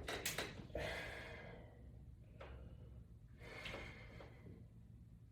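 A man breathing hard while working against a doubled resistance band, with a few audible breaths; the longest comes in the first second and a half.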